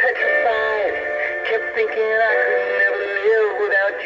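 A man's voice singing a song over a backing track, played through a small tinny speaker with almost no bass.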